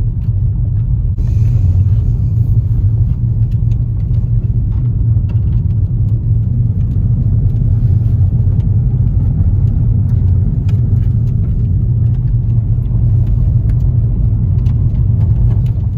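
Steady low rumble of a moving vehicle, with faint scattered clicks over it; it drops off suddenly at the very end.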